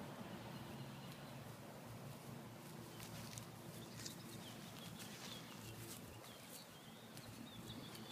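Quiet outdoor ambience: small birds chirping faintly in the second half, with light crunching steps on dry grass.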